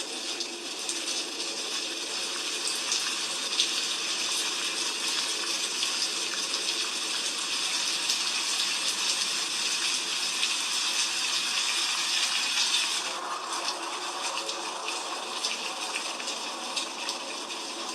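Heavy rain falling in a steady hiss. About thirteen seconds in the sound shifts, turning lower and fuller.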